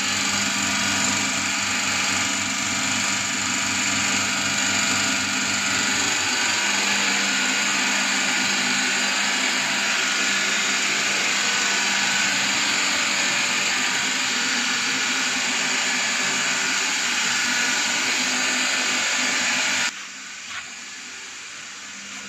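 Vacuum pump unit of a single-bucket milking machine running steadily with a whining motor hum. Its sound drops sharply to a much lower level about twenty seconds in.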